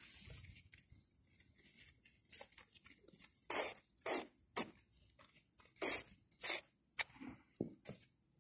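Paper tissue being unfolded and handled, rustling and crinkling in a series of short, sharp bursts, most of them in the second half.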